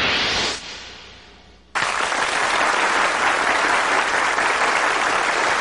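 A rising swell at the end of the theme music fades out, then about two seconds in a studio audience starts applauding suddenly and keeps up loud, steady applause.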